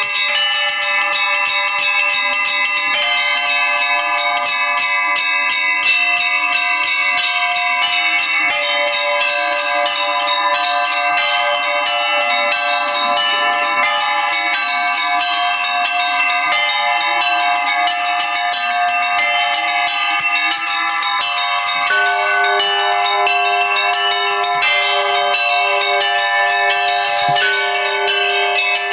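Russian Orthodox church bells rung by one bell-ringer: a continuous, rapid peal of small high bells over middle bells. About three quarters of the way through, a deeper bell joins with repeated strokes.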